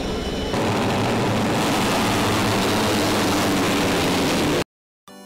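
A pack of Moto3 racing motorcycles, with 250 cc single-cylinder four-stroke engines, going past at racing speed: a loud, dense engine noise that swells about half a second in and cuts off suddenly near the end.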